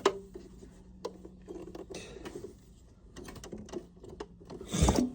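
Small clicks, taps and rustles of hands working plastic electrical parts and wiring on a chest-freezer compressor, with a louder knock near the end. A faint steady hum stops about two seconds in.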